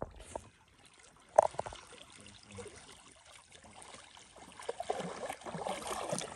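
A dog swimming with a duck in its mouth: soft sloshing and trickling of water around it, growing louder near the end as it nears the bank. One sharp click about a second and a half in.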